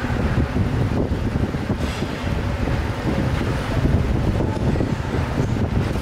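Steady low rumbling workshop noise, with a couple of faint clicks of metal parts being handled.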